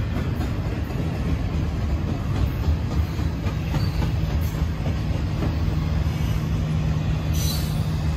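Double-stack intermodal freight train of container well cars passing, with the steady rumble of steel wheels rolling over the rails and a brief high hiss about seven seconds in.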